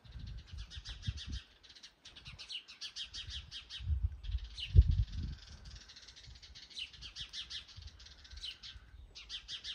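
Small songbirds singing fast trills, each a quick run of high notes, over and over. Under them are irregular low rumbling bumps, and the loudest comes about five seconds in.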